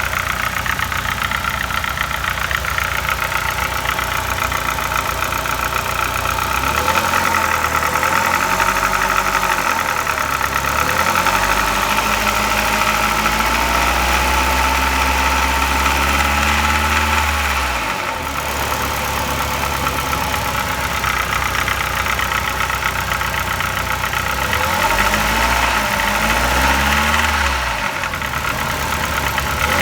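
ZMZ-406 16-valve inline-four petrol engine running with a knock. It idles, and its revs rise and fall several times in the middle and again near the end.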